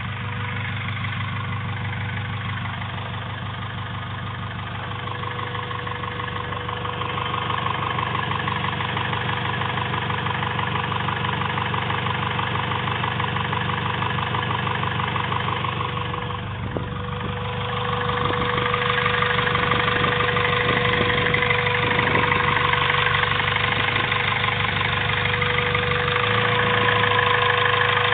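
Rebuilt turbocharged Honda B16A2 1.6-litre four-cylinder engine idling, carrying the strange noise the owner is trying to identify. The sound gets somewhat louder about two-thirds of the way through.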